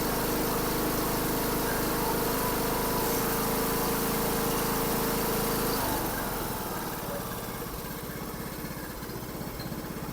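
John Deere LA125 riding mower engine running steadily, then slowing to a lower, quieter idle about six seconds in. It runs much better now that the cracked, flooding carburetor has been replaced.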